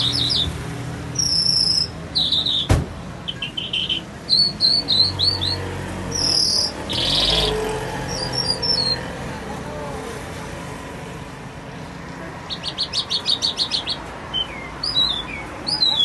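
A caged lark singing a varied song of short high chirps, whistled slurs and buzzy notes, with a fast run of about ten repeated notes near the end. A single sharp click sounds about three seconds in.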